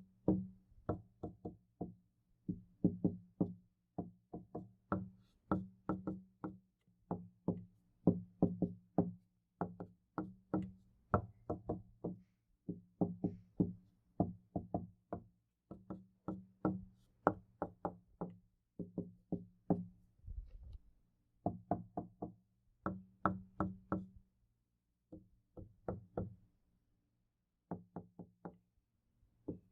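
Knocking on a door in quick runs of two to four knocks, with short pauses between runs, each knock leaving a low ring.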